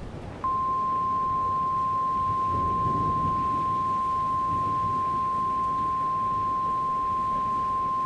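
NOAA Weather Radio 1050 Hz warning alarm tone: one steady, unbroken high beep starting about half a second in, which signals that a warning broadcast is about to follow.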